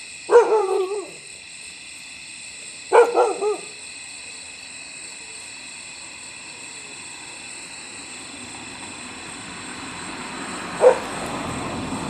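A dog gives two short, wavering yelping barks about two and a half seconds apart, with a brief third sound near the end. A steady chorus of insects such as crickets buzzes underneath throughout.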